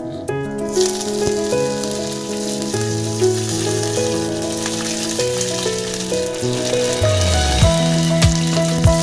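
Hot oil sizzling in a frying pan as seeds fry and curry leaves and dried red chillies are added for a tempering; the sizzle starts about a second in. Background music plays throughout, with a low beat coming in near the end.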